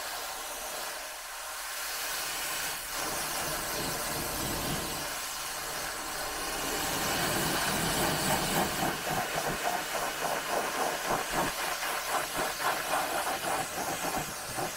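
Pressure-washer jet spraying water onto a foam-covered car's hood and windscreen: a steady hiss of spray that gets louder about halfway through and then flutters rapidly as the jet is swept across the panels.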